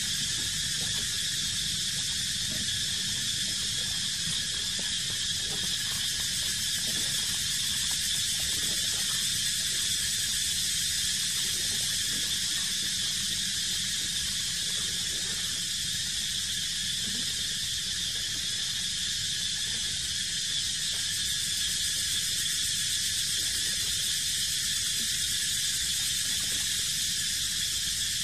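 Steady, unbroken high-pitched drone of an insect chorus in the forest trees, with a low rumble underneath.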